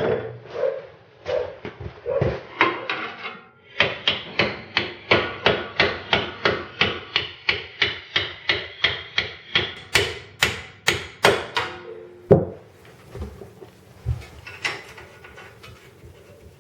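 Hammer blows during silent-block (suspension bushing) work. A few spaced strikes come first, then a steady run of about three blows a second for some eight seconds, ending with one loudest strike.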